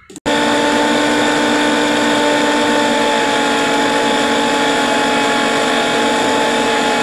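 Small electric blender's motor switching on about a quarter second in and running loud and steady at a constant pitch, grinding a spice paste of shallots, garlic, candlenut, lemongrass, ginger and turmeric.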